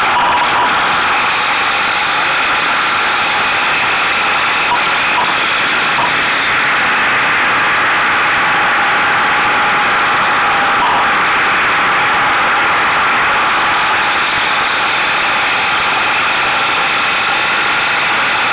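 Buell motorcycle engine running at a steady pace under way, mixed with loud, even wind rush on the camera mounted to the bike's mirror stalk.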